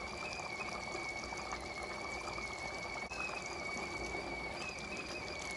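Stovetop kettle whistling at the boil: one steady high whistle that wavers slightly in pitch. Under it, a thick red lentil stew bubbles as it simmers in the pot.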